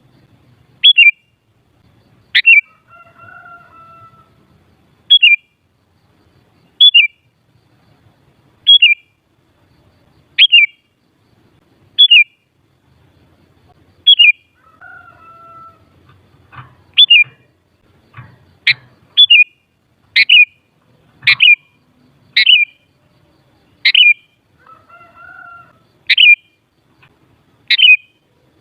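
Sooty-headed bulbul (kutilang) calling: loud, short, sharply falling chirps repeated every second or two, quickening in the second half. A fainter, lower phrase is heard three times.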